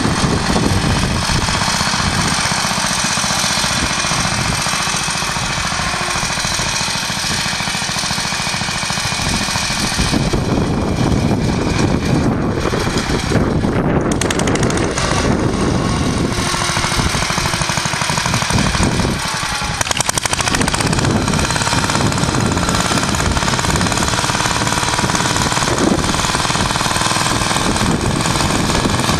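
Engine of a vintage Clifford Mk1 two-wheel walk-behind tractor with a J.A.P. engine, running steadily under load with a rapid, pulsing exhaust beat as it ploughs.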